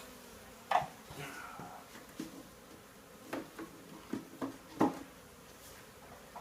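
About six short, sharp knocks and clunks spread over several seconds, with the loudest a little under a second in and just before five seconds in.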